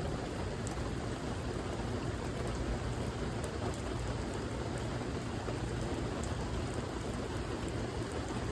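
Steady rain falling, a dense even hiss with a deep low rumble beneath it and faint scattered drop ticks.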